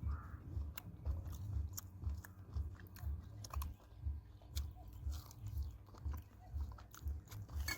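A person chewing food with an even rhythm of about two chews a second, with small crunching clicks.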